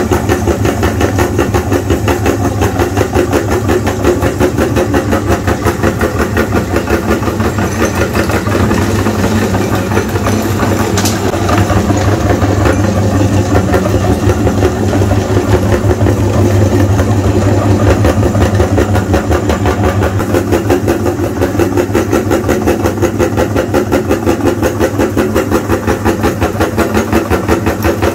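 An engine running at a steady idle, with an even, rapid pulse.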